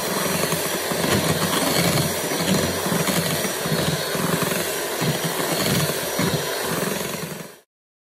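Electric hand mixer running steadily, its beaters whipping cream in a glass bowl as the cream stiffens into peaks. The sound cuts off suddenly near the end.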